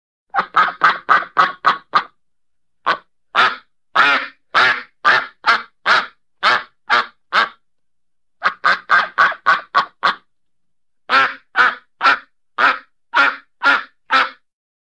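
A duck quacking in repeated runs of short quacks. Three runs are quick, about four quacks a second. A slower run of about two a second comes between roughly three and seven and a half seconds in. Each run is separated by a brief silence.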